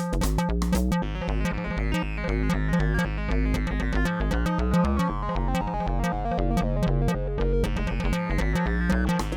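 Background music: synthesizer and keyboard with a steady bass line and a regular beat.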